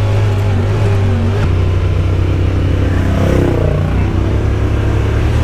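Side-by-side UTV engine running under way with a steady low drone, its pitch shifting briefly a little past halfway.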